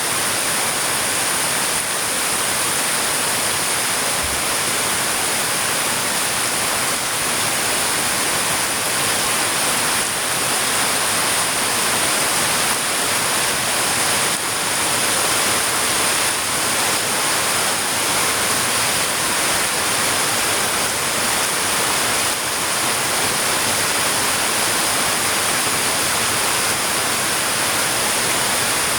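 Heavy rain falling steadily: a dense, even hiss with no breaks or single drops standing out.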